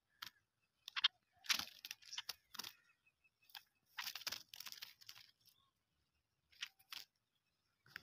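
Faint scattered rustling and crunching in short bursts, with a few sharp clicks: handling noise of dry material close to the microphone.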